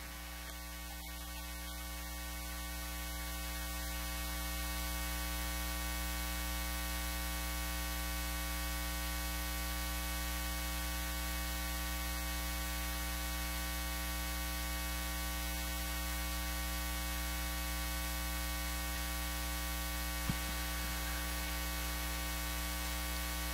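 Steady electrical mains hum with a buzzy row of overtones, growing a little louder over the first few seconds. A faint click sounds near the end.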